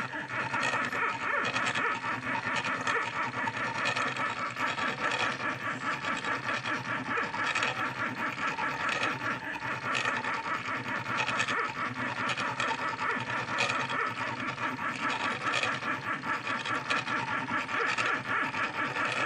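Stepper motors of a homemade mini CNC laser engraver driving the X and Y axes while raster-engraving a photo: a steady buzzing whine that pulses rapidly, with a short click now and then.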